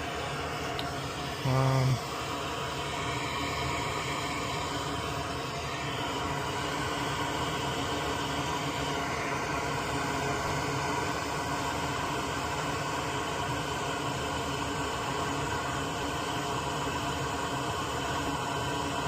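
Soldering fume extractor fan running with a steady whir and hum. About a second and a half in, a short loud electronic buzz sounds once.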